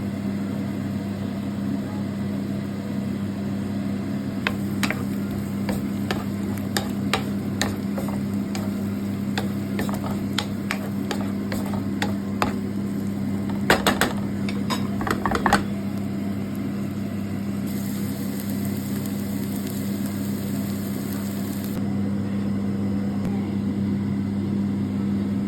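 Asparagus omelette frying in a pan: a steady sizzle over a constant low hum. From about four seconds in until about sixteen seconds in, a utensil repeatedly clicks and taps against the pan, most sharply near the middle.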